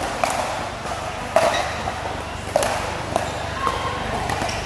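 Pickleball rally: sharp paddle hits on the plastic ball, about one every second or so, over the steady murmur of a large hall.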